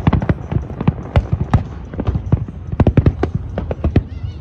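Large aerial fireworks display: shells bursting in a rapid, uneven run of sharp bangs, several a second.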